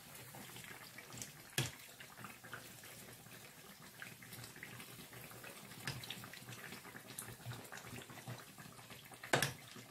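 Tunisian fricassé dough frying in shallow hot oil, with a steady sizzle and fine crackling as hot oil is spooned over the pieces. A sharp click about one and a half seconds in and a louder one near the end.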